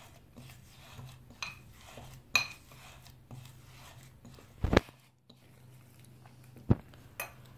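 Slime being kneaded by hand in a glass bowl: faint squishing with several sharp clinks against the glass, the heaviest knock a little past halfway.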